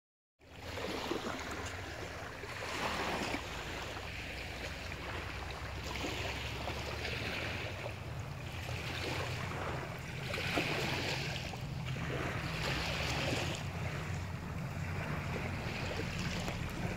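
Wind buffeting the microphone as a steady low rumble, over the hiss of surf on a beach that swells and fades every couple of seconds.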